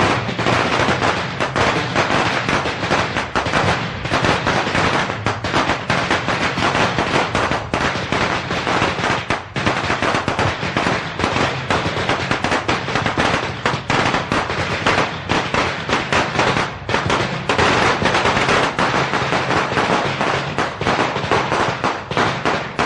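A long string of Chinese firecrackers going off in a dense, continuous rattle of rapid sharp bangs.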